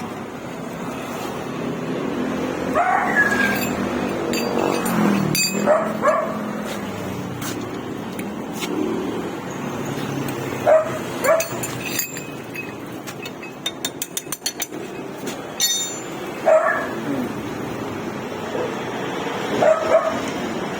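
A dog barking and yelping now and then, about half a dozen short barks spread through, over a steady background hum. A quick run of sharp clicks comes about two-thirds of the way through.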